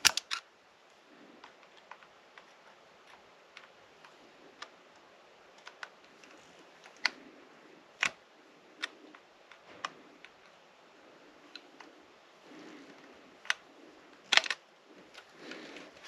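Scattered light clicks and taps of small hand tools and metal parts being handled on the workbench. The taps come at irregular intervals, with a sharper clatter at the very start and a few louder clicks near the middle and about two-thirds through.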